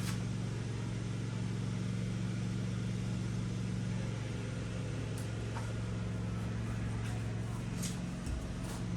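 Ingersoll Rand air compressor running: a steady motor-and-pump hum with a few light clicks, the hum shifting slightly near the end.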